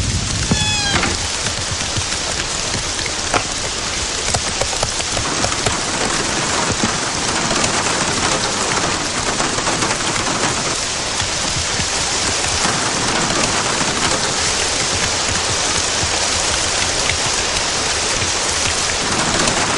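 Heavy rain pouring steadily: a dense, even hiss of rain.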